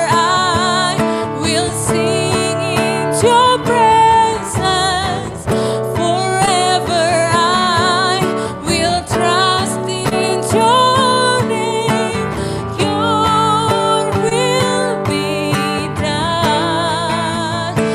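Live worship band music: a slow song played on sustained instruments under a melody line that wavers with vibrato.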